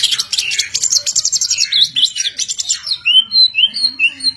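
White-rumped shama (murai batu) singing: a fast run of rapid chattering notes, then from about three seconds in a string of short arched whistles, about two a second.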